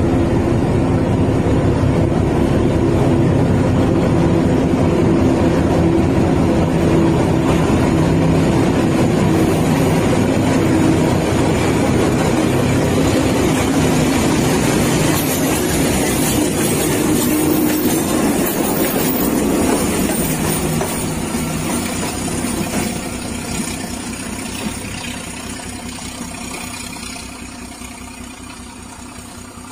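Diesel locomotive engine running with a steady, deep, pitched drone, fading gradually over the last ten seconds or so.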